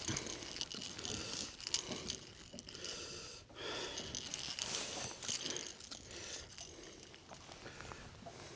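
Faint crinkling rustle with scattered small clicks, the sound of close handling.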